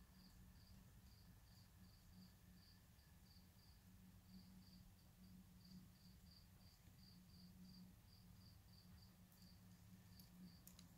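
Faint night chorus of spring peepers: short, high peeps following one another several times a second, over a low steady hum.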